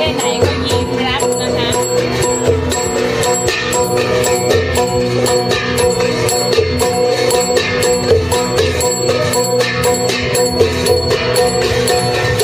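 Traditional Shan dance music for the Kingkara dance: a drum beating repeatedly under ringing gong-like tones and sharp cymbal strokes, played without pause.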